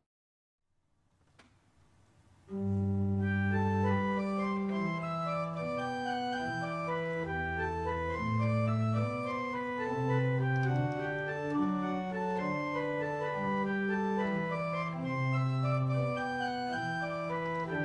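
A short silence, then about two and a half seconds in an organ begins playing a slow piece of held chords and sustained notes, moving steadily from one chord to the next.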